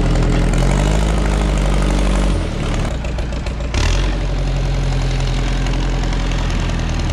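Engine running steadily, its sound dropping in level about two and a half seconds in and picking up again about a second later.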